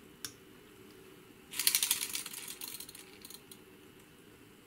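A single click from the thermocouple simulator's push button, then about a second and a half later a rapid rattle of fine ticks lasting about two seconds and fading: the aircraft ITT indicator's servomotor and gear train driving the pointer and drum counter up from 110 to about 200 degrees.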